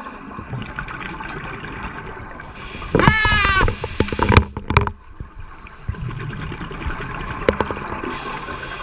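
Underwater scuba sound: regulator bubbles gurgling steadily, broken about three seconds in by one loud, wavering honk of about half a second from a diver's underwater signalling horn, the divemaster's alert for the group to move away from the moray eel. A couple of sharp clicks follow.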